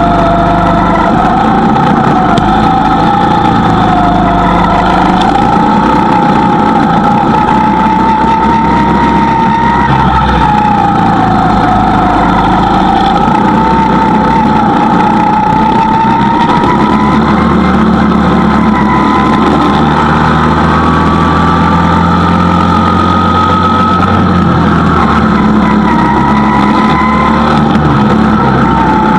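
Go-kart engine running continuously with a strong whine whose pitch keeps rising and falling as the revs go up and down, climbing higher in the second half.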